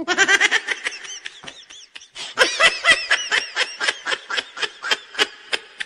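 High-pitched giggling laughter: a rapid string of short 'hee' syllables, easing off briefly about two seconds in, then resuming louder.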